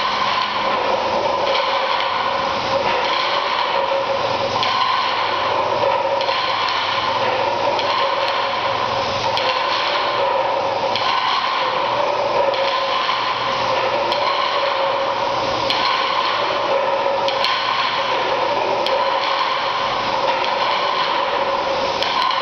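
Steady mechanical whirring and rattling from a kinetic sound installation of floor discs on threads, with two wavering tones and a pulsing swell about every second and a half.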